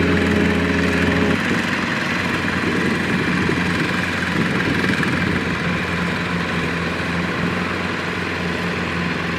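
Two-wheel walking tractor's single-cylinder diesel engine running steadily while pulling a loaded trailer through rice stubble. Background music fades out about a second and a half in.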